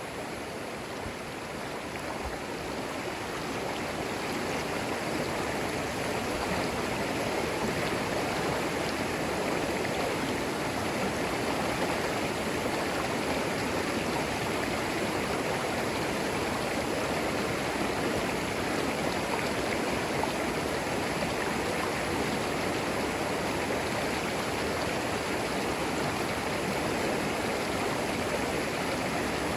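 Shallow creek water flowing and splashing over stones, a steady rushing babble.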